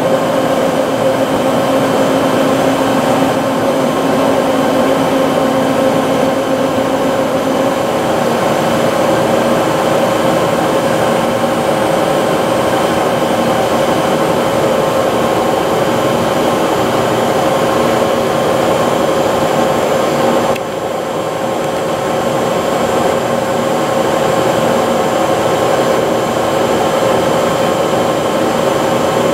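Bullard CNC vertical turret lathe running, its table and 56-inch four-jaw chuck turning, making a steady mechanical hum with a few held whining tones. A lower tone drops out about eight seconds in, and about two-thirds of the way through the level dips suddenly, then creeps back up.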